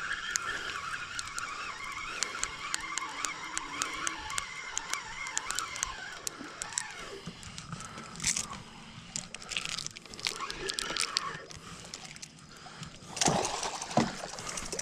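Fishing reel ticking irregularly as a hooked redfish is played on the line, with a wavering high tone in the first half and louder noisy bursts, likely the fish splashing, near the end.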